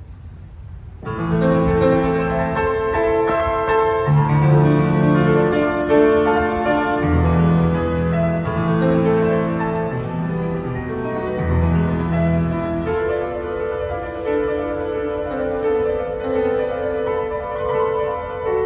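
Piano playing a slow melodic piece, with held bass notes under a melody; it starts about a second in.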